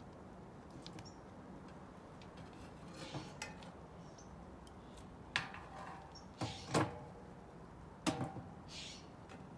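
A handful of sharp metal clinks and knocks of cookware on a wood-fired camp stove, a few with a brief ring, the loudest in the second half, over a low steady background hiss.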